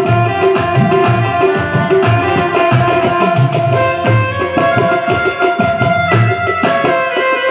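Instrumental devotional music: a hand drum keeps a steady beat under a held melodic line.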